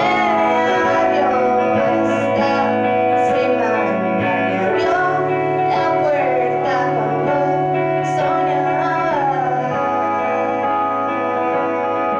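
Live band music: electric guitars playing, with a woman singing over them in long, gliding notes.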